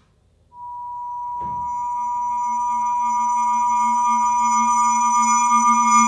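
A synthesized "saw" sound effect: a steady, pure tone that comes in about half a second in. About a second later a lower tone and faint high overtones join it, and it slowly swells in loudness.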